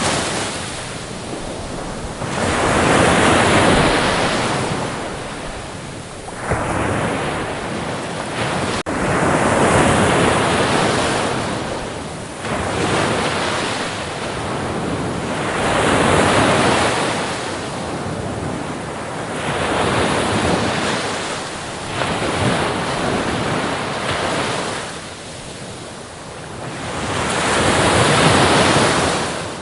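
Sea waves breaking and washing up on a shore. The surf rises and falls in about five big surges several seconds apart, with a steady hiss of water between them.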